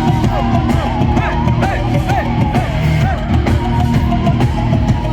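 Live rock music from a band playing loud, with electric guitar over heavy drums and bass.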